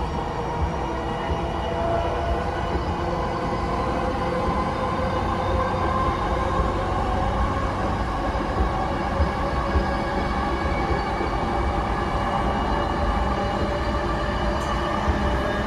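JR East E233 series 5000 electric train running, heard inside the passenger car: a steady rumble of wheels on rail with faint steady whining tones over it.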